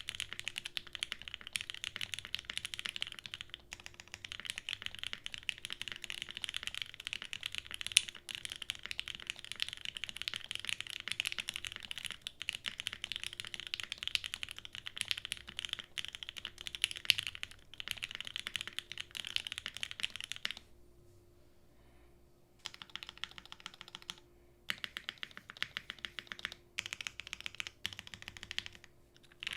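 Fast typing on a 7V by Gok mechanical keyboard with Krytox-lubed Gateron CJ linear switches on a polypropylene plate with no dampening, and GMK keycaps: a dense, continuous stream of keystrokes. It stops for about two seconds past the middle, then resumes with a few short breaks.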